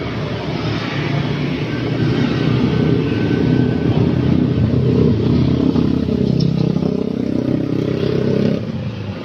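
Street traffic passing: a car and motorcycle engines. The noise builds over the first few seconds, stays loud through the middle, and drops off near the end.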